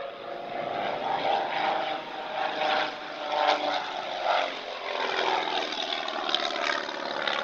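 Propeller aircraft engine running, a steady drone with a slightly shifting pitch.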